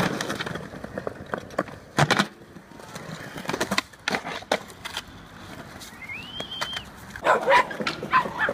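Skateboard on concrete ledges and pavement: wheels rolling and the board clacking, with a hard clack about two seconds in and more around four seconds. Near the end, dogs yip and bark while playing.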